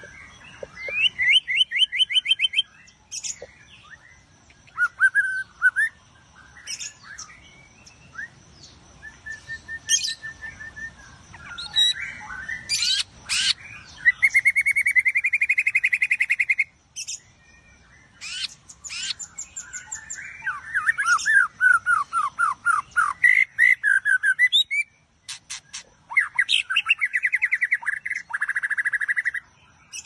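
A caged white-rumped shama singing a long, varied song of loud whistled phrases, fast trills and chattering notes in bursts separated by short pauses. A faint steady high-pitched tone runs behind it.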